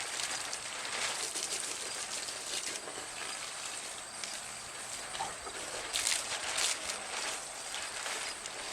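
Garden hose spray hissing steadily and spattering on wet clothing and skin, with a few louder splashes about six seconds in.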